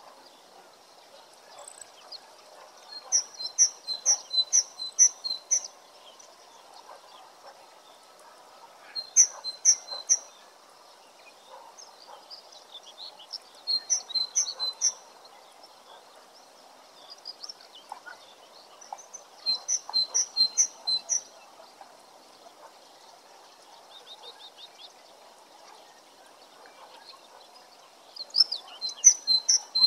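A songbird singing short phrases of quick high notes, repeated several times a few seconds apart, over a faint steady background noise.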